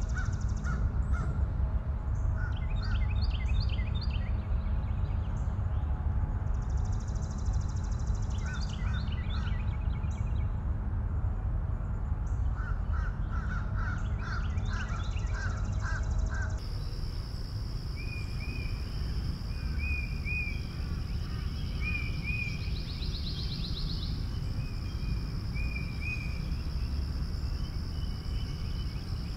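Birds calling, with repeated crow-like caws, over a steady low rumble like wind. About 16 seconds in the sound changes abruptly to a steady high insect-like trill, with a short bird chirp every couple of seconds.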